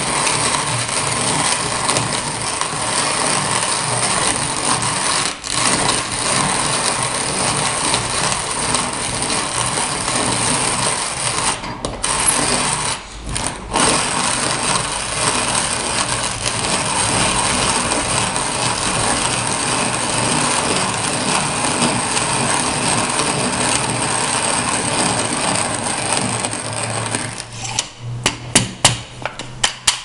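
Vintage Leinbrock's Ideal hand-cranked conical burr coffee grinder grinding coffee beans on its finest setting: a steady, continuous grinding as the crank turns, with brief pauses about five seconds in and around twelve to fourteen seconds in. Near the end the sound breaks up into separate short scrapes.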